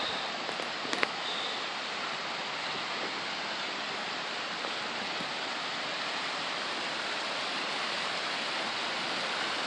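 Steady rush of a waterfall. A single sharp click about a second in.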